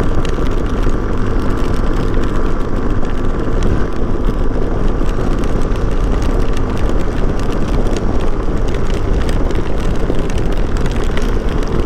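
Hero Xpulse 200 single-cylinder motorcycle engine running at a steady speed under way, with a heavy low rumble of wind on the microphone.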